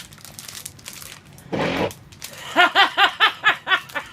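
A woman laughing in a fast run of pitched "ha" pulses, about four a second, starting about two and a half seconds in. Just before it comes a short rustling burst.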